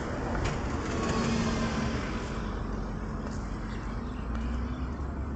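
Street traffic: a motor vehicle passes on the road, its engine and tyre noise swelling about a second in and then fading into steady background traffic.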